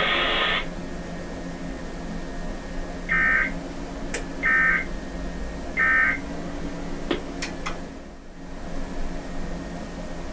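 Emergency Alert System end-of-message data bursts: three short, buzzy digital tone bursts about a second and a half apart, which signal that the alert broadcast has ended. A loud rush of noise cuts off about half a second in, and a few faint clicks follow the bursts.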